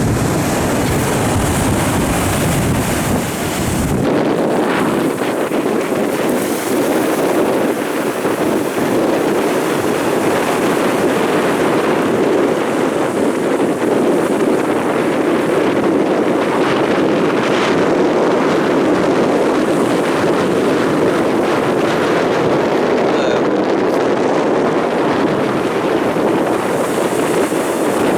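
Storm surf on the sea with strong wind: a steady, loud roar of waves. Wind buffets the microphone with a deep rumble for the first few seconds, which stops about four seconds in.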